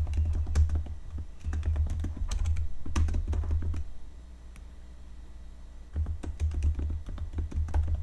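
Rapid typing on a laptop keyboard while writing a message: quick key clicks over a low thudding, in two runs with a pause of about two seconds in the middle.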